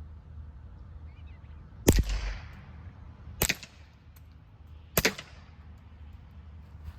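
Three suppressed shots from a Ruger Mark IV 22/45 Lite .22 pistol fitted with a CMMG Defcan-22 suppressor, firing CCI Quiet 22 LR rounds at 835 feet per second. The shots come about a second and a half apart, and the first is the loudest, with a short echo trailing after it. The loudest peaks at 82.9 decibels on the meter.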